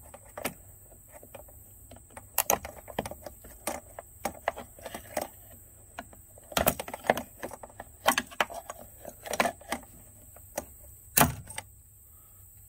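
Flathead screwdriver prying at a hose clamp on a truck's coolant hoses, metal and plastic clicking and scraping in irregular taps. The loudest snap comes near the end.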